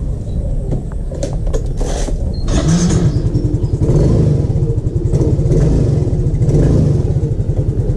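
Yamaha Mio Soul i 125's single-cylinder scooter engine running on a test run after a new washable air filter has been fitted, with a few knocks in the first two seconds. The throttle is opened about two and a half seconds in, and the engine runs louder and faster from then on.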